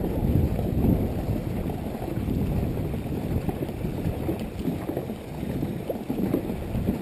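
Dragon boat crew paddling hard at race pace, single-blade paddles digging in and splashing water in an uneven churn, with wind rumbling on the microphone.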